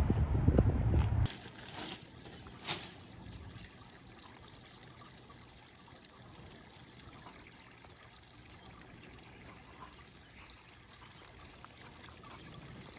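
A small stream of water trickling steadily and faintly, with one brief click a few seconds in. For the first second and a half a loud low rumble is heard, which then cuts off sharply.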